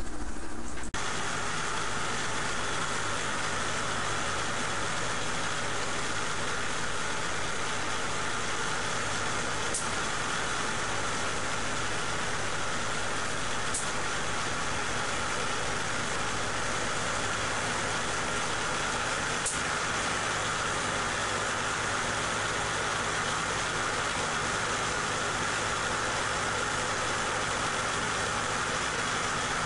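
Homemade Van de Graaff generator running steadily: a small salvaged ice-machine motor (3050 RPM, 1/70 hp) driving the rubber belt over Teflon and aluminium rollers, a steady mechanical hum and whir. Three faint sharp ticks stand out, about ten, fourteen and twenty seconds in.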